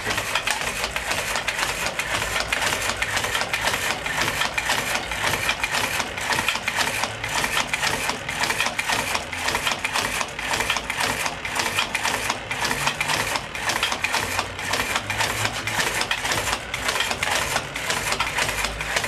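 Squeeze-dynamo flashlights clamped to an oscillating lever, their geared dynamos whirring with fast, even clicking as the lever's swing pumps their handles.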